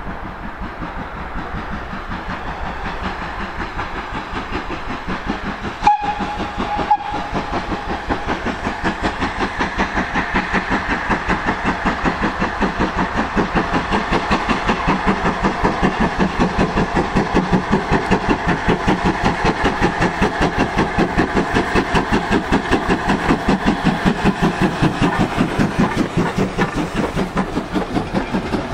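GWR 42xx class 2-8-0 tank engine No 4247 hauling a goods train, its steam exhaust beating in a fast, even rhythm that grows steadily louder as it approaches and passes close by. A short whistle toot sounds about six seconds in.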